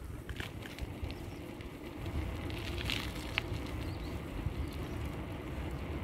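Low, fluctuating rumble of wind buffeting the microphone while riding a bicycle along a paved path, with a few faint clicks and rattles.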